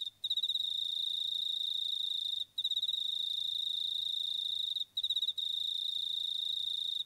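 A cricket trilling in long, high-pitched trills of about two and a half seconds, each starting with a few quick pulses and broken by a brief pause.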